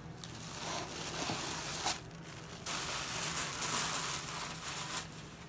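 Packaging paper and wrapping rustling and crinkling as makeup items are unpacked from the box, in two stretches, the second louder.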